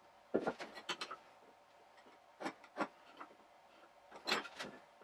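Hand tools knocking and scraping on a wooden rail as it is marked out with a square and a marking tool. The sound comes as three short clusters of clicks and knocks: one shortly after the start, one in the middle and one near the end.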